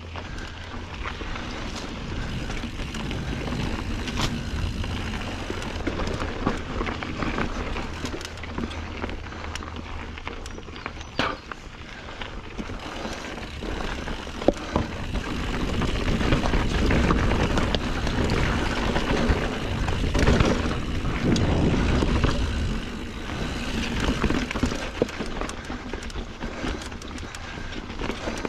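Norco Sight A2 full-suspension mountain bike being ridden on dirt singletrack, picked up by a GoPro's microphone: tyre noise on the trail with frequent sharp clacks and rattles, getting louder for several seconds past the middle. A low wind rumble sits under it.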